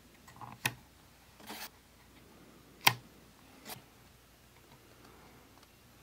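Newly installed Lutron toggle dimmer switch being flipped: a few sharp clicks, the loudest about three seconds in, with a softer rustle between them.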